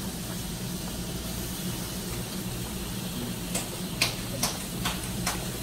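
Covered skillet of chicken stew simmering on a gas stove: a steady low hum and hiss, with a few light ticks about three and a half to five and a half seconds in.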